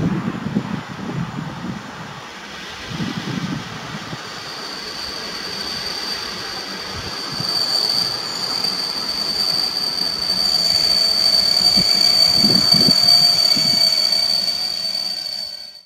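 Electric-locomotive-hauled passenger train approaching, its rolling noise growing louder as it nears, with a high steady squeal from about four seconds in and a lower tone joining about two-thirds through.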